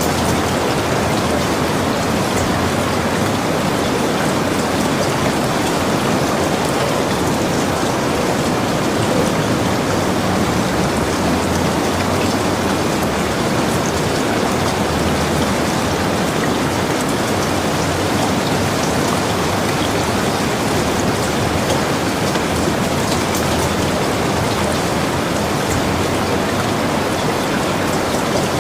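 Steady rain falling: an even, dense hiss of drops with fine patters of individual drops, unchanging throughout.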